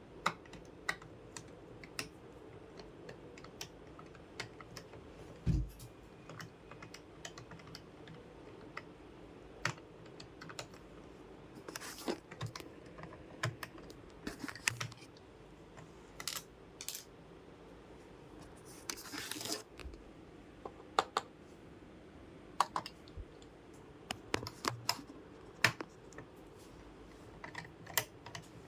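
Scattered sharp clicks and light taps of hard plastic, irregularly spaced, from hands working on a computer. There is a heavier knock about five and a half seconds in and a short scraping rustle around nineteen seconds.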